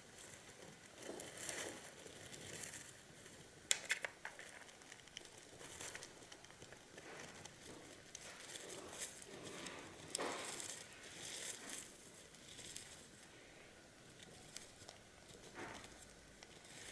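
Faint, irregular rustling and crackling of wood-shaving bedding as sleeping hamsters shift in their nest, with a few sharp clicks about four seconds in and a louder rustle near ten seconds.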